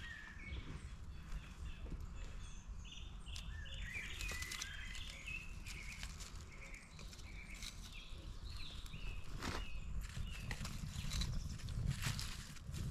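Split kindling and feather sticks knocked and set down on one another as a fire lay is built, with light clicks and clatters of wood. Near the end come a few sharp scraping strikes as the wood shavings are lit.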